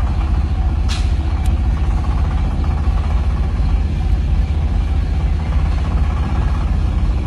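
Motor vehicle running with a steady low rumble as the camera rolls past a queue of scooters, with faint voices under it. A short sharp hiss sounds about a second in, and a shorter one half a second later.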